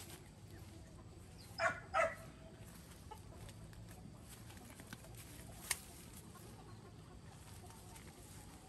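Two short, loud clucks from a chicken in quick succession about a second and a half in, over faint steady background noise, with a single sharp click a few seconds later.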